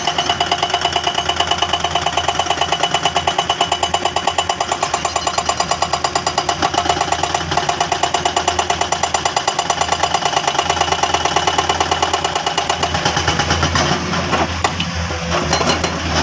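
Excavator-mounted hydraulic breaker hammering rock at a fast, even rate of roughly ten blows a second, over the excavator's diesel engine. The hammering stops near the end, leaving the engine running.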